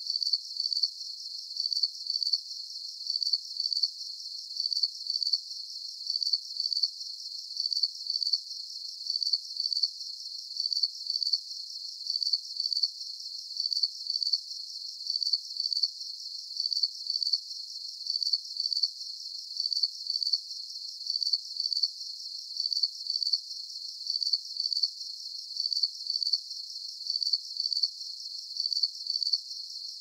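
Cricket chirping in a steady, evenly spaced rhythm of short high-pitched chirps, with no other sound.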